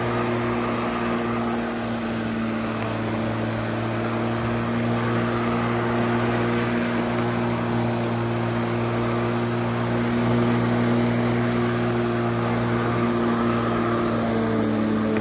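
Corded electric lawnmower running and cutting overgrown grass: a steady motor hum over the whir of the blade, its pitch dipping slightly near the end.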